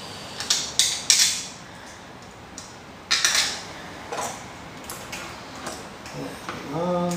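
Hands fitting small parts onto a quadcopter frame: clicks and clatters of clear plastic dome arches and landing-gear pieces, screws and nuts, loudest about half a second to a second in and again around three seconds in. A short steady hum near the end.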